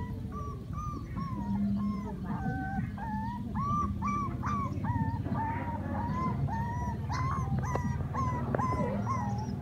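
A puppy whining and crying over and over: a string of short, high, wavering whimpers, about two a second, over a low steady hum.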